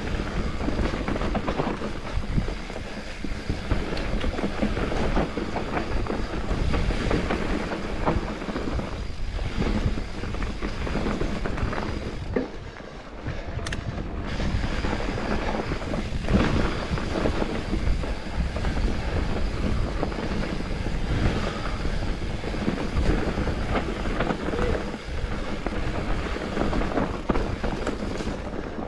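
Electric mountain bike (Specialized Turbo Levo) ridden fast down a dirt trail: tyres rumbling over the ground with a constant clatter of chain and frame rattling over bumps, and wind on the microphone. The noise eases briefly about halfway through.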